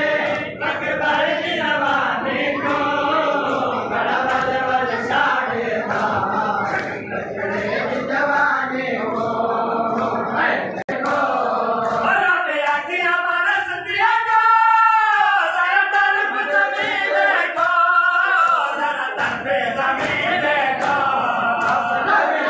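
Male mourners chanting a noha together, with regular slaps of hands beating on chests (matam). About halfway through, one man's voice leads a long wavering line before the group joins in again.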